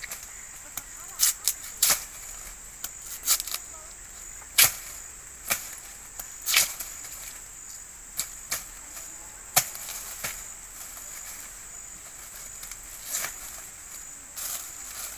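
Irregular sharp clicks and knocks, about fifteen of them, over a steady high-pitched insect drone.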